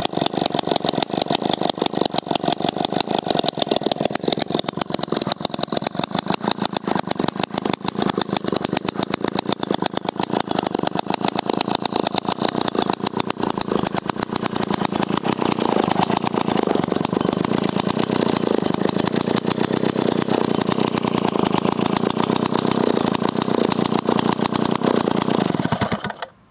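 Jobu D94 Tiger chainsaw's 93 cc single-cylinder two-stroke engine idling steadily with a rapid, even firing beat. The engine cuts off suddenly near the end.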